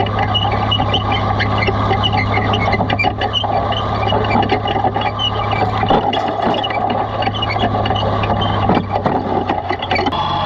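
Cockshutt 1850 tractor's engine running steadily under load as it pulls a moldboard plow through grass sod, with the plow frame rattling and clanking close by.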